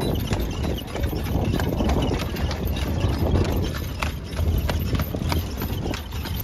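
Hooves of a carriage horse clip-clopping at a walk on an asphalt road, several uneven strikes a second, over a steady low rumble.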